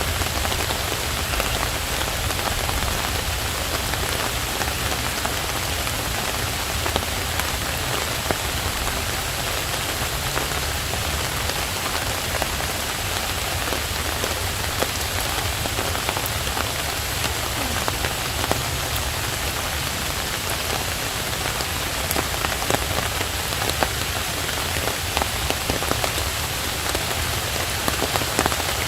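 Steady rain falling, with scattered sharp ticks and pops over the hiss.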